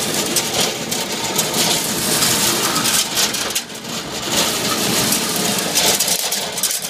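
Motorized McCormick corn sheller running, driven by an electric motor and V-belt, with a dense rattle as ears of corn are shelled. The noise dips briefly about halfway through.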